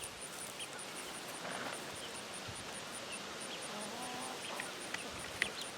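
Wind noise on the microphone with a flock of chickens in the background: a few faint chirps and a soft low hen call about four seconds in. A faint, even high ticking runs underneath, about five ticks a second, and a small click comes near the end.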